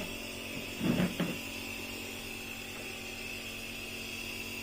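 Nebulizer compressor running with a steady mechanical hum, with a short burst of voice about a second in.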